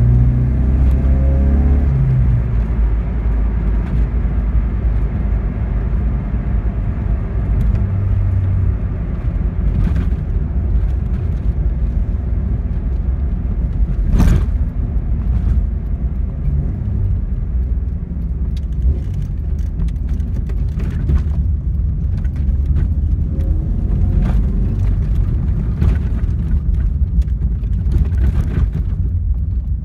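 1992 Alfa Romeo 33 1.3's flat-four boxer engine heard from inside the cabin on the move, running on newly fitted Bosch spark plugs, with steady road noise. Its pitch rises as the car accelerates at the start and again a little after twenty seconds in, and a sharp click sounds about fourteen seconds in.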